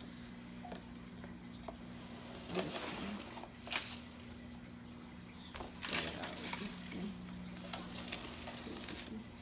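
Black & Decker 4.8 V cordless carpet sweeper running over carpet: its small motor hums steadily while spilled rice and grit crackle and rattle as they are swept up, with a few sharper clicks along the way.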